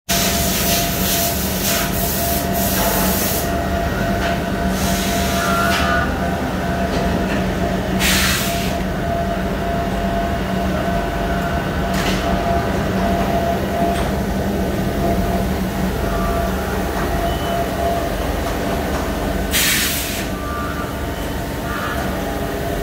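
CNC turn-mill machining center running: a steady machine hum with a couple of held tones, broken several times by short spells of hissing.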